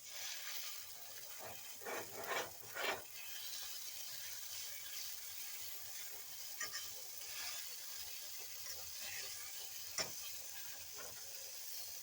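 Chicken and eggs frying in a pan with a steady sizzle. A few scrapes of a utensil in the pan come about two to three seconds in, and a single sharp click comes near the end.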